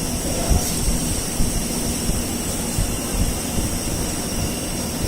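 Steady mechanical rumble and hum with a high hiss and scattered low knocks.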